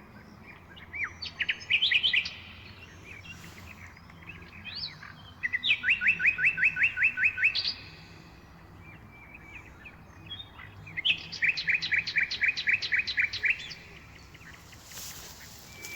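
A small songbird singing: a few short notes about a second in, then two phrases of quick, evenly spaced notes, each about two seconds long, starting about five and a half and about eleven seconds in.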